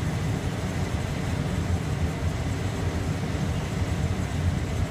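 Bukit Panjang LRT train, a rubber-tyred people mover, running along its elevated concrete guideway, heard from inside the car as a steady low rumble.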